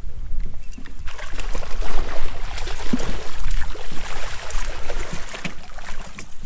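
Water splashing as a hooked steelhead thrashes at the surface beside the boat.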